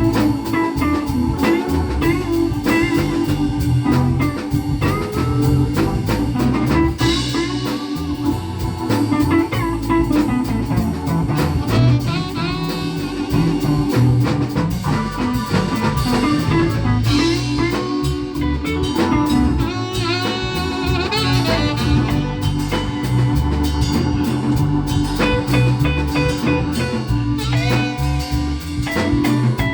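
Blues band with guitar and drum kit playing an instrumental passage of a slow blues song, without vocals.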